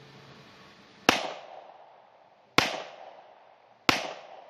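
Three pistol shots from a Glock 24 in .40 S&W, fired about a second and a half apart, each a sharp crack with a short echoing tail.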